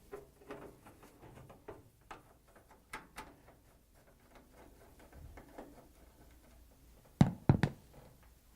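Phillips screwdriver backing out the screws of a dryer door hinge from sheet-metal: a string of faint clicks and scrapes, then two sharp knocks about seven seconds in, a fraction of a second apart.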